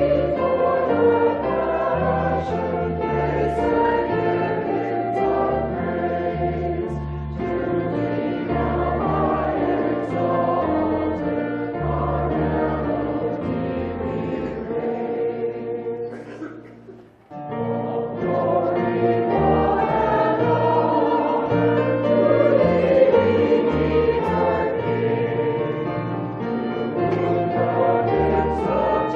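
Choir singing a church hymn with low bass notes beneath, breaking off briefly a little past halfway before the singing resumes.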